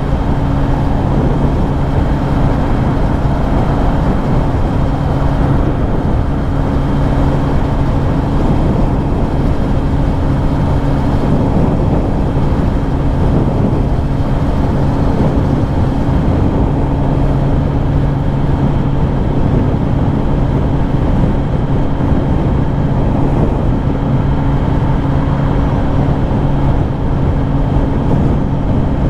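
Kawasaki Ninja ZX-10R inline-four engine running at a steady, constant pitch while the bike is ridden, mixed with loud rushing road and wind noise.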